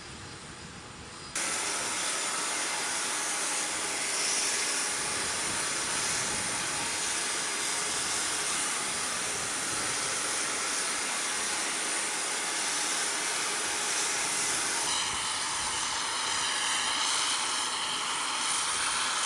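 Steady jet turbine noise of a C-5M Super Galaxy on the ground: a hiss, mostly high in pitch, that starts abruptly about a second in. From about fifteen seconds in, several whining tones waver in pitch over it.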